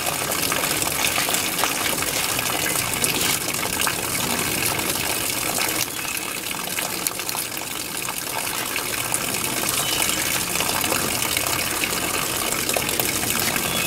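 Water running steadily from a garden hose, an even gush of noise that does not let up.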